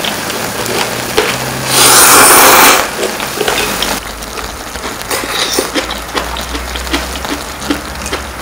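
Close-miked eating of soupy instant ramen noodles: a loud slurp of noodles about a second long, then a run of small clicks and wet sounds as metal tongs lift noodles out of the pot.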